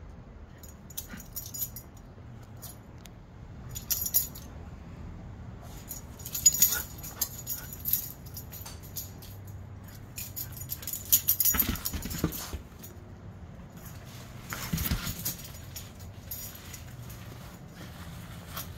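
Husky moving about the yard, its collar tags jingling in short bursts every second or two, with a couple of duller thuds about twelve and fifteen seconds in.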